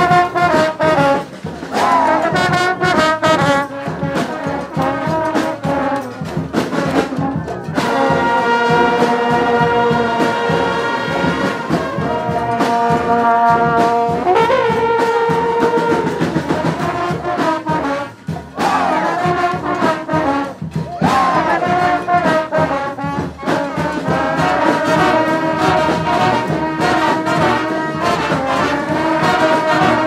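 Massed street brass bands playing live together: trumpets, saxophones, clarinet, horns and sousaphones. About eight seconds in, the horns hold long sustained chords for several seconds, then go back to short rhythmic phrases.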